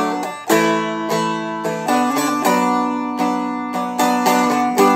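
Seagull Merlin M4, a four-string dulcimer-style acoustic instrument, strummed in a steady rhythm with a new chord attack about every half second. The chord changes a few times as the riff is played through.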